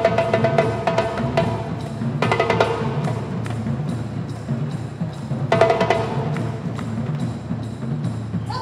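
Live percussion ensemble music: a steady drum rhythm with wood-block-like strikes, and a pitched melodic part that comes in for short phrases at the start, about two seconds in, past the middle, and again at the end.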